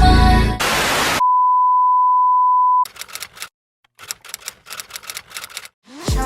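Edited intro sound effects: music cuts off into a short burst of static hiss, then a steady test-tone beep for about a second and a half, then irregular crackling clicks with a brief silence. Near the end new music starts with deep falling bass drops.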